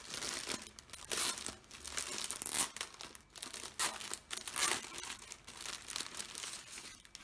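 Irregular crinkling and rustling of plastic and paper being handled by hand, as a diamond painting inventory sheet is pulled out of the kit.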